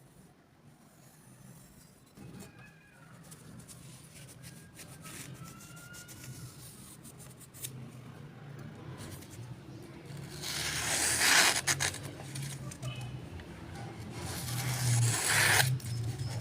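A small motor hum building up, with two rasping grinding strokes of about a second each, one around ten seconds in and one near the end: a knife blade being ground on a sharpening tool.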